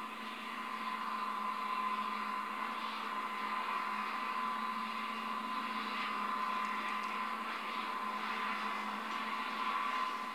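Small electric motor of a scratch-built N gauge model track tamper whirring steadily with a high whine as it creeps along the track.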